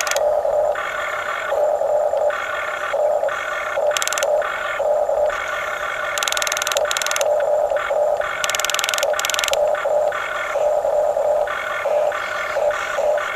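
Small electric gear motors of a radio-controlled toy construction machine whining in short stop-start spells as the controls are worked, with a few harsher, rattly spells.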